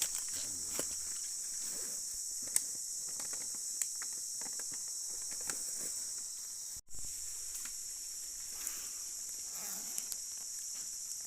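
Steady high-pitched drone of a forest insect chorus, with scattered small clicks and rustles over it; the sound cuts out for an instant about seven seconds in.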